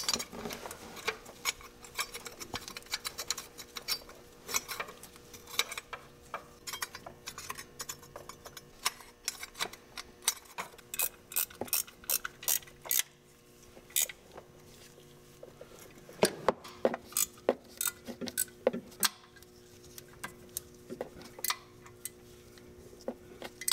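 Hand ratchet clicking in short runs, with light metal clinks of bolts and a steel cover plate being fitted, over a faint steady hum.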